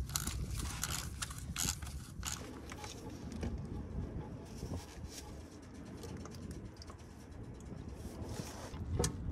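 A steel automatic-transmission pan being dropped off the transmission: sharp clicks and scrapes of tools and metal in the first two seconds or so as the last bolts come out and the pan is worked loose, then a low rumble with light patter of fluid dripping from the tilted pan.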